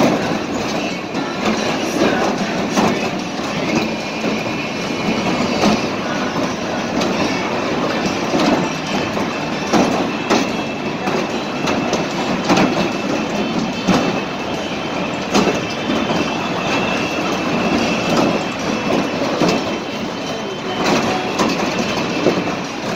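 Tornado spinning-tub amusement ride running: the cars rolling around the platform give a steady mechanical rumble with frequent clattering knocks and a faint high squeal.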